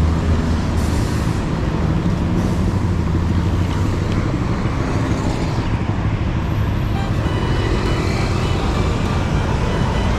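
City road traffic: vehicle engines running with a steady low rumble and tyre noise, with two short hisses in the first few seconds.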